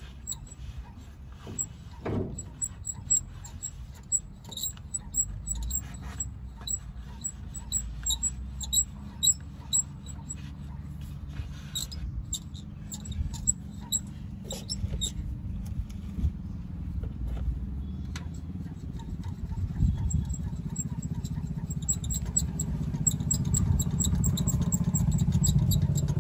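Case 770EX backhoe loader's FPT diesel engine running at low speed, with light irregular ticks and squeaks over the low engine rumble. The engine grows louder in the last several seconds as it picks up revs.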